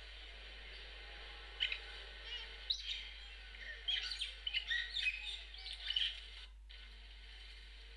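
Ducklings peeping: a run of short, high chirps from about one and a half seconds in until about six seconds in, over a steady faint hiss.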